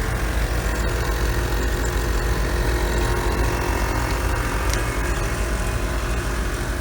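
The truck's two onboard air-suspension compressors running steadily as they pump up the air system, filling fast after fresh wiring.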